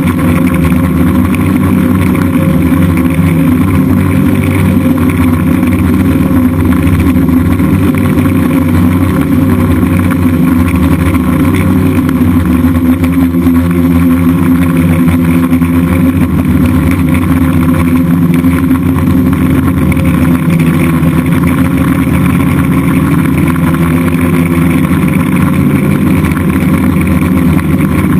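DJI F550 hexacopter's six electric motors and propellers running steadily in flight, a loud continuous drone whose pitch shifts slightly as the throttle changes.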